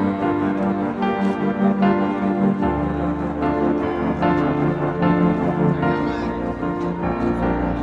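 Background instrumental music led by piano, with a new chord about two and a half seconds in.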